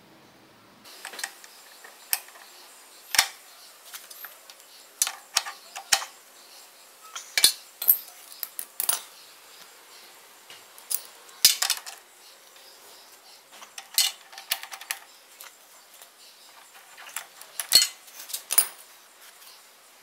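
Irregular sharp metallic clinks and clanks of tools and small metal parts being handled on a motorcycle rear wheel, sometimes single, sometimes in quick clusters.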